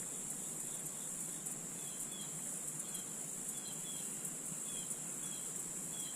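Steady high-pitched drone of insects in the surrounding woods, with faint short chirps repeating every half second or so.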